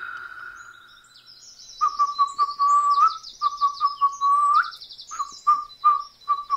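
Birds chirping and twittering in quick high notes from about two seconds in, over a lower whistle-like note that repeats in short pieces and is twice held and rises at its end.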